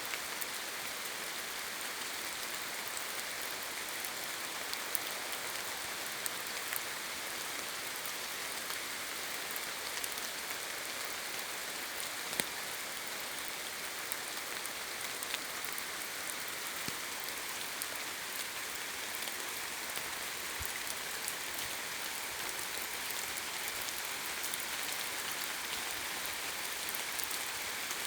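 Steady rain, an even hiss with individual drops landing close by now and then, one louder about twelve seconds in.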